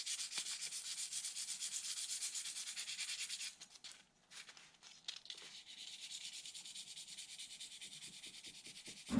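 Fine sandpaper rubbed by hand over the painted body shell of a scale RC Jeep Cherokee, wearing through the paint for a faded look: quick back-and-forth strokes, about four or five a second, that stop a little over three seconds in, with a few light clicks, then resume more softly.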